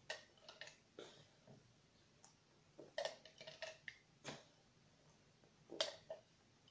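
Quiet, scattered feeding sounds: a toddler's short mouth noises and light clicks of a spoon and plastic cup as he is fed a smoothie. The sounds come as a dozen or so brief ticks and smacks, with a cluster about three seconds in and a sharper one near the end.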